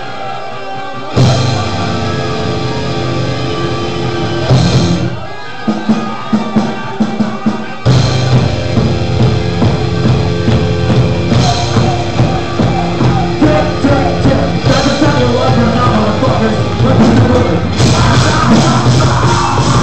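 Loud live rock band with drum kit. A held chord rings out, the full band crashes in about a second in, breaks into a few seconds of stop-start hits midway, then comes back in full.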